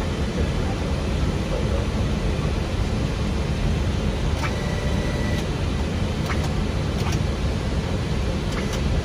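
Steady low rumble of airflow and engine noise on an Airbus A320 flight deck, with a few faint clicks in the second half and a short faint tone around halfway through.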